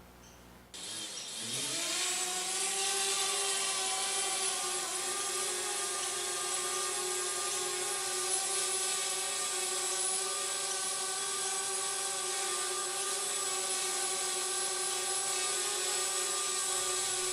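DJI Spark quadcopter's propeller motors starting up about a second in. The whine rises quickly in pitch, then settles into a steady, even buzz.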